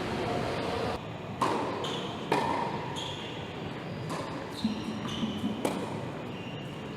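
A series of sharp impacts over a steady background hiss: two loud knocks about a second apart, each with a brief ringing tone, then several lighter knocks in quicker succession.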